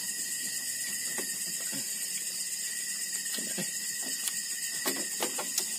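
Steady, high-pitched chorus of night insects, with a few soft clicks from eating and handling dishes at the table.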